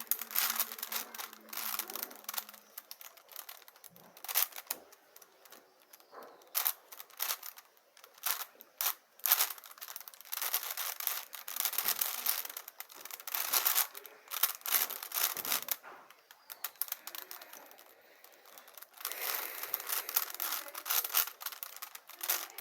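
Plastic 5×5 Rubik's cube being turned quickly by hand: fast runs of clicking and clacking as the layers snap round, in bursts with short pauses between moves.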